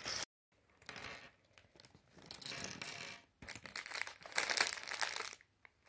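A clear plastic bag of Lego pieces crinkling as it is handled and emptied, with small plastic bricks clattering onto a wooden tabletop in irregular bursts.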